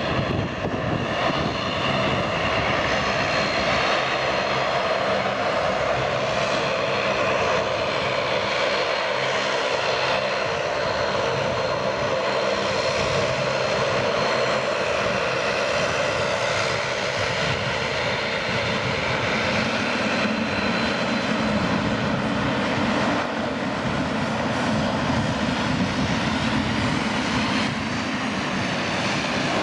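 The twin General Electric GE90-115B turbofans of a Boeing 777-300ER running as the airliner taxis and lines up on the runway: a steady jet noise. A thin high whine is heard in the first half, and a deeper rumble joins about two-thirds of the way through.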